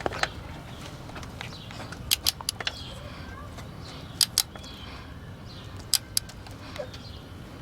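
Click-type torque wrench clicking on connecting rod cap bolts as they reach the set 15 ft-lb: sharp metallic clicks in close pairs, three or four times about two seconds apart.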